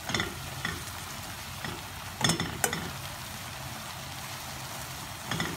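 A spoon stirring sautéed saluyot (jute leaves), tuna and onion in a wok, with several sharp clinks and scrapes against the pan, the loudest a little over two seconds in. A steady sizzle of frying runs underneath.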